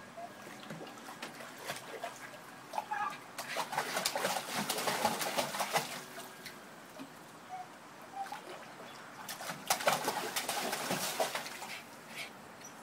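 Water splashing and sloshing as two dogs wade and scramble about in a plastic kiddie pool, in two busy spells with quieter paddling between.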